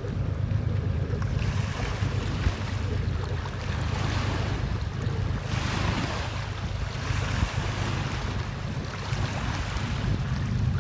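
Small river waves lapping at the shore in repeated washes, under a steady low rumble of wind on the microphone.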